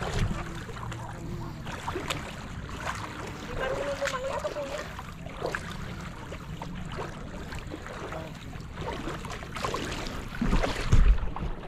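Shallow sea water washing and lapping, with faint distant voices. A loud low rumble of wind on the microphone comes near the end.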